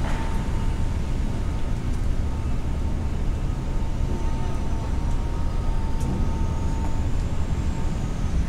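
Steady low rumble of outdoor background noise, with a faint steady high whine over it for most of the stretch.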